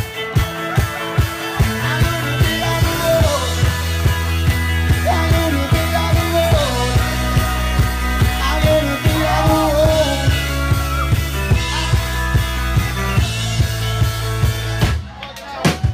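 Live rock band playing, with drums keeping a steady beat under bass and guitar and a voice singing over them. The sound drops away briefly near the end, then the beat comes back in.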